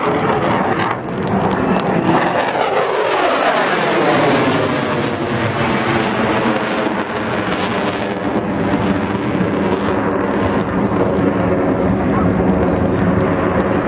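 A jet aircraft flying past loudly, its engine pitch sliding down as it passes, then settling into a steady drone with many tones over a rumble.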